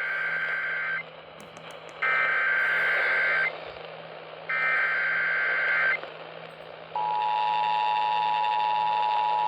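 Emergency Alert System activation received over AM radio. Three stretches of rasping SAME header data tone, each a second or so long with a pause between, encode the severe thunderstorm warning. About seven seconds in, the steady two-tone EAS attention signal starts. A hiss of AM reception noise runs underneath.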